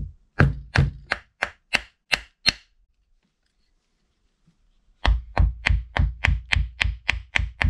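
Screwdriver handle tapping on a Bing 33 carburetor to jar its stuck diaphragm cover loose. About seven sharp knocks come roughly three a second, then a pause of about two seconds, then a faster run of knocks at about four a second.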